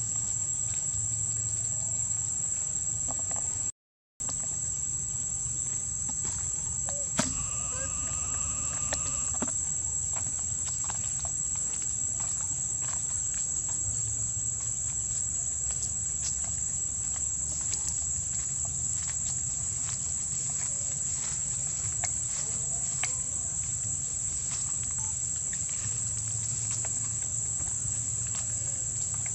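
Insects keep up a steady, high-pitched drone, broken by a brief dropout about four seconds in. A short call is heard around eight seconds in, and there are scattered faint clicks.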